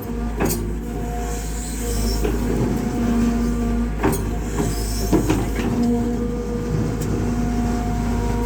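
Kobelco SK120 excavator's diesel engine running steadily under working load, its pitch rising and falling as the hydraulics work, with a few sharp knocks about half a second, four seconds and five seconds in.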